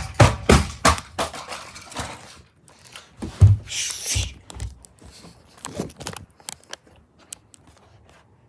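Robot vacuum tumbling down a staircase: a quick series of hard plastic knocks and clatters, a heavy thud with a short scrape about three and a half seconds in, then a few more thumps and light clicks as it settles.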